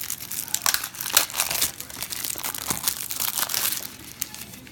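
Packaging of chewy ginger candies being torn open and handled: irregular crinkling and crackling, thinning out near the end.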